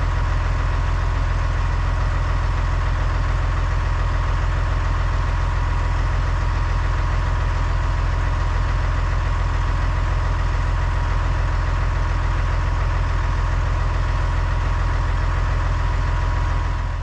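Massey Ferguson tractor's diesel engine idling steadily at a constant speed.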